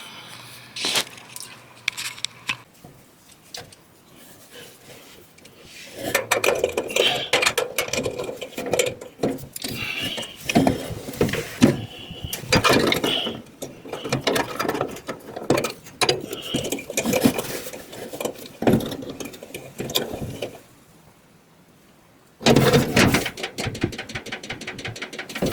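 Hands and tools working metal dryer parts while a new idler pulley is fitted: irregular clicks and clatter, then, about three-quarters of the way through, a rapid run of clicks as the pulley's bolt is being tightened.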